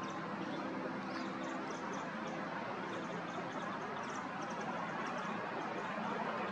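Steady outdoor background noise with faint, short high chirps of small birds scattered throughout; the perched carrion crow stays silent.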